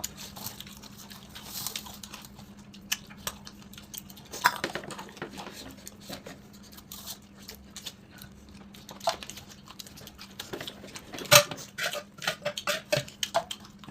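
Eating sounds from a mukbang meal of buffalo curry: scattered clicks and light clatter of utensils and dishes with mouth noises, the busiest run of them near the end.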